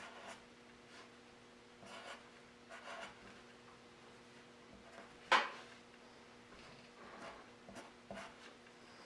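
Pencil scratching on paper in short, faint strokes. A single sharp tap about five seconds in is the loudest sound.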